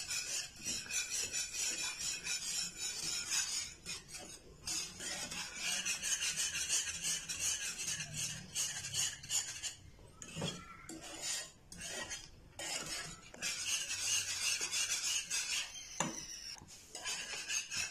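A metal wire whisk stirring thick cheese sauce in a frying pan: quick, repeated scraping strokes against the pan, with a few brief pauses.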